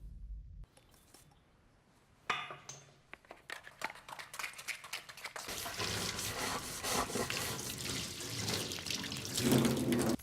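Running water with drips and splashes, starting suddenly about two seconds in and growing denser and louder.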